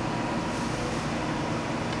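Steady running noise of an industrial parts washing machine, an even machine hum and hiss with a faint steady whine.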